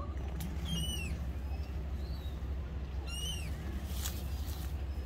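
A bird calling twice, about two and a half seconds apart, each a short call that slides downward, with a few fainter chirps between, over a steady low rumble.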